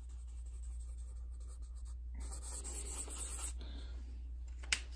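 Red marker pen scratching across paper, with a stretch of rapid scribbling about two seconds in, over a steady low hum. A single sharp click comes near the end.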